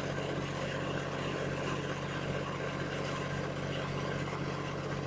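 An engine idling steadily, a low even hum that does not change.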